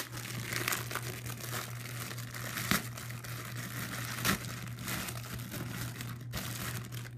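Plastic wrap crinkling and crackling as hands handle and peel it off a boxed toy, with a couple of sharper crackles about two and a half and four seconds in.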